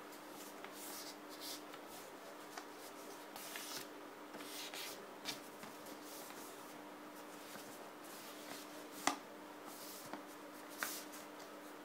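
A sheet of paper being folded and creased by hand: soft, intermittent rustles with a single sharper tap about nine seconds in, over a faint steady hum.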